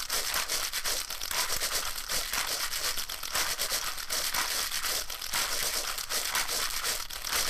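Fast, continuous plastic clicking and rustling of a puzzle cube being turned at speed, many clicks a second.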